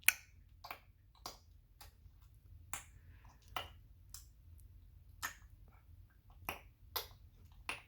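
A series of short, sharp clicks, about a dozen or more at uneven intervals, made while a baby is being coaxed to imitate a sound.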